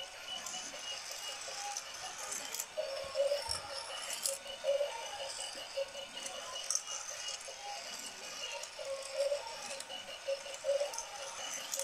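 Battery-powered plastic toy race track running: small plastic cars rattle and click along the track and up the stepped lift, over the steady hum of the toy's small electric motor.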